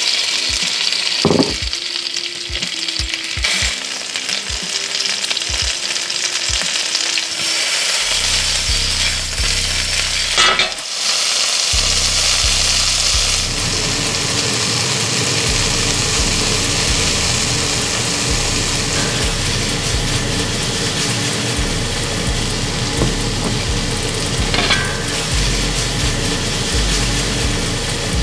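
Pearl onions, shiitake mushrooms and flour-dredged Cornish hen pieces frying in hot oil in a stainless skillet and an enameled Dutch oven: a steady sizzle, with a few clunks of cookware.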